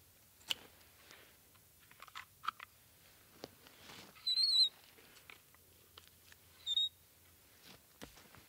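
Faint clicks and small cracks of a whittled wooden fishing rod and eyelet being handled, with two short, high, wavering chirps, the louder one about four seconds in and a shorter one near seven seconds.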